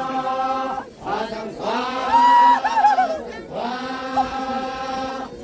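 A Naga dance troupe singing a traditional group chant: many voices hold long notes together in three phrases, with brief breaks between them. In the middle phrase, one higher voice rises above the group and warbles downward.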